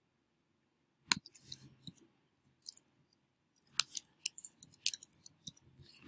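Computer mouse clicks and keyboard typing. There is a single sharp click about a second in and a few scattered clicks after it, then a quick run of key taps in the second half as a word is typed.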